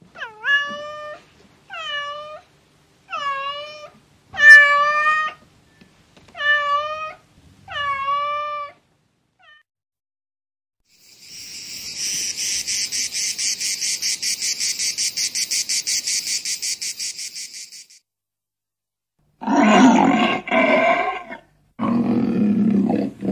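Domestic cat meowing six times in a row, then a cricket trilling in a fast, even, high pulse for about seven seconds, then a lion growling and roaring twice near the end.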